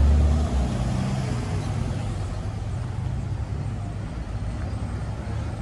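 A motor vehicle's engine running close by, a loud low hum that fades over the first second or so. Steady street traffic noise follows.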